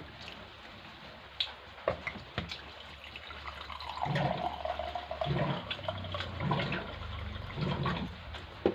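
Close-miked wet mouth sounds of a person eating chicken balado: scattered clicks and smacks, then from about four seconds in a denser run of wet chewing with a low pulse about once a second.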